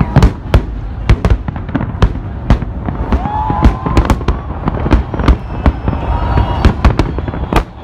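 Fireworks salute: a fast, irregular series of sharp bangs from bursting shells, several a second, over a steady low rumble of booms echoing.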